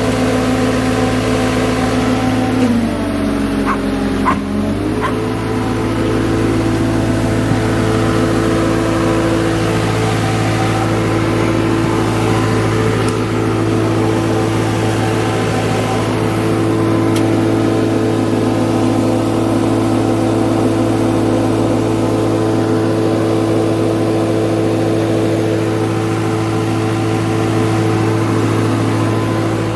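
CAT 279C compact track loader's diesel engine running steadily; its speed dips briefly and recovers about three to five seconds in.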